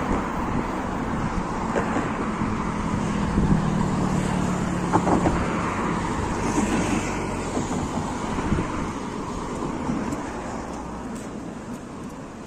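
Street traffic noise: a steady wash of road noise with a motor vehicle's engine hum through the middle, the whole fading somewhat toward the end.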